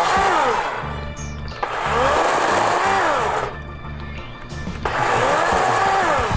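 Background music with a stepping bass line and repeated short tones that rise and fall.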